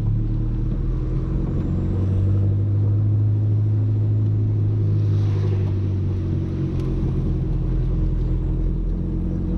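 Audi A3 1.8T 20-valve turbocharged four-cylinder engine running steadily as the car drives slowly, a low, even hum.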